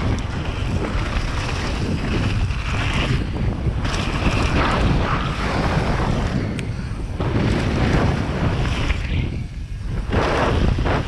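Wind rushing over a GoPro Hero 7's microphone on a mountain bike riding fast down a loose gravel trail, with the tyres rolling over the stones. The rushing eases briefly a couple of times.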